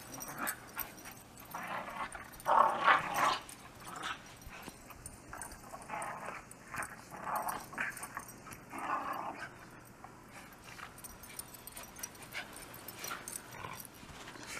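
Miniature schnauzers vocalising in several short bursts, the loudest about two and a half to three seconds in.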